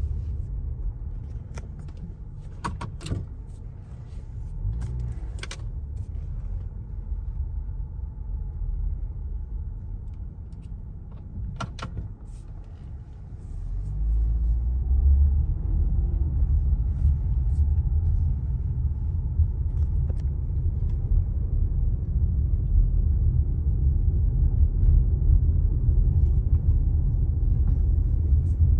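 Low road and engine rumble heard from inside a moving car's cabin, with a few sharp clicks in the first half. The rumble grows louder about fourteen seconds in and stays up.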